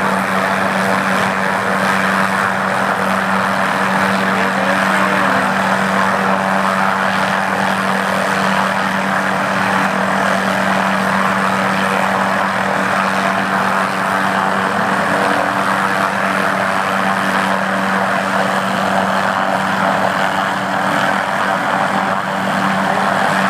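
Helicopter engine and rotors running, a loud, steady drone with a constant low hum that does not change.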